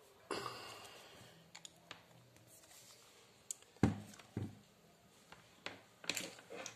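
Handling noises of a plastic-bodied electric drill: a sharp thump about four seconds in as it is set down on a wooden tabletop, a second knock just after, and scattered clicks and rustles from the hands and the chuck key. The drill's motor is not running.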